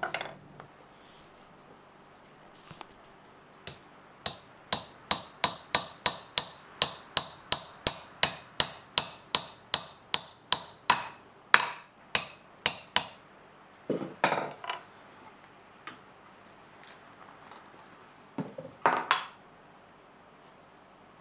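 Small hammer tapping a pin into a hole drilled through a wooden Japanese plane block (kanna dai): a steady run of about twenty sharp, ringing taps, two or three a second, that then stops. Two short, duller clatters follow later.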